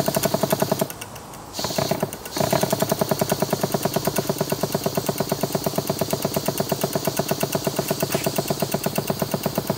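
Stuart 10H single-cylinder horizontal model steam engine running fast on steam, its exhaust beats coming in a rapid, even rhythm of several a second, with steam hissing from a leaking gasket. About a second in the beats drop away briefly with a short hiss, then pick up again at the same speed. The owner hears a knock in the running engine.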